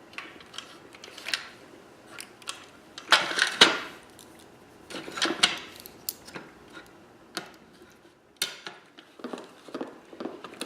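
Metal parts of an EST SIGA-278 fire alarm pull station clicking and scraping as a piece is worked loose from the metal cover plate, with louder clatters about three and five seconds in.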